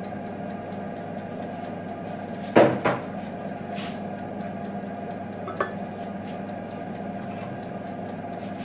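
Kitchenware knocking against a stainless steel pot while sugar is scraped in from a bowl: two quick clanks about two and a half seconds in, then a small click later, over a steady hum.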